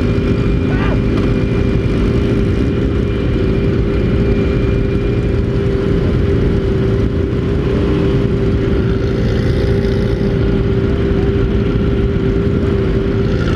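Sport motorcycles idling together in a group, a loud, steady engine rumble with a constant hum that does not rise or fall.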